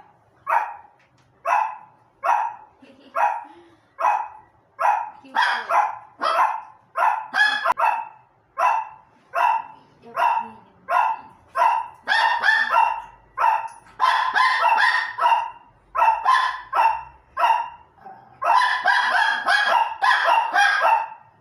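Dogs barking: one dog gives short barks at about one a second, and from about a quarter of the way in more barks overlap, until several dogs are barking together in dense bursts.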